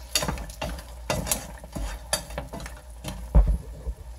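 Mussels and large white prawns sizzling in a frying pan while a wooden spoon stirs them, knocking against the shells and the pan every half second or so, with a heavier knock about three and a half seconds in.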